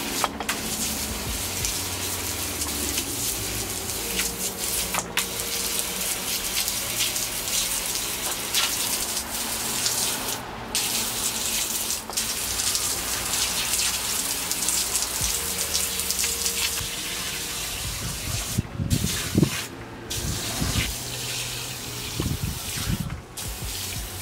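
Hand-pumped manual pressure washer spraying a jet of water that hisses against a concrete gutter. The spray stops briefly several times, and a few louder low thumps come near the end.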